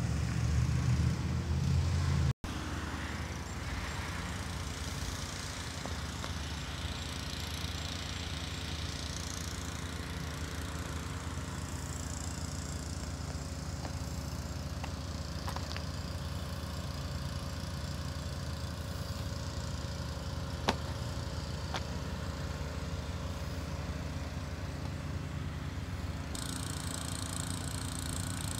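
Steady low mechanical hum of an engine running, louder for the first couple of seconds before it drops off suddenly, with one sharp click about two-thirds of the way through.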